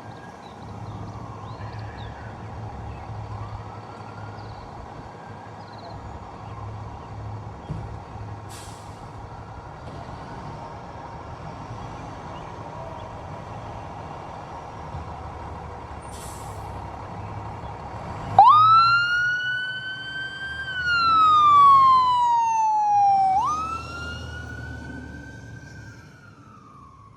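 Fire truck siren wailing, coming on suddenly about two-thirds of the way in: it rises, falls, climbs again and winds down slowly. Before it, a heavy vehicle engine rumbles steadily with faint siren tones in the background.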